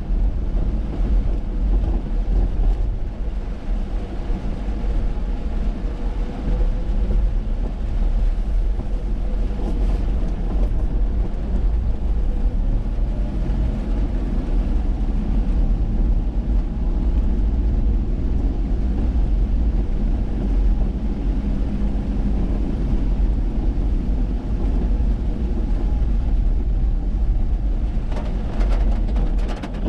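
Car driving, heard from inside the vehicle: a steady low rumble of engine and road noise, with a faint engine hum that slowly rises and falls.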